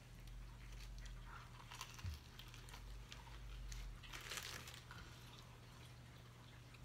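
Faint rustling and crinkling of a paper sandwich wrapper, with a short louder crinkle about four seconds in as the sandwich is set down into it, over quiet chewing.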